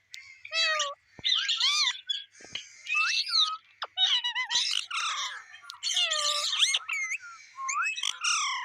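Pet parrot calling and chattering: a rapid run of short squawks and warbling whistled notes that bend up and down in pitch, with brief pauses between them.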